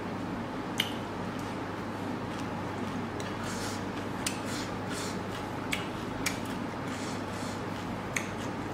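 Eating by hand: fingers mixing rice and vegetables on a ceramic plate, with a handful of sharp clicks and smacks scattered through, over a steady low hum.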